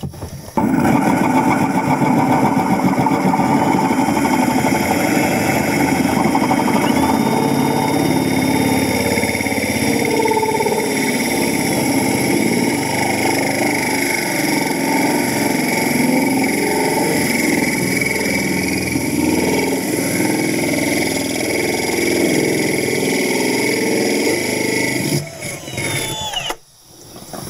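Cordless Milwaukee Fuel drill spinning a glass hole saw bit that grinds steadily through the bottom of a glass wine bottle, with tap water running over the cut. The drill winds down about 25 seconds in, once the bit has gone right through the glass.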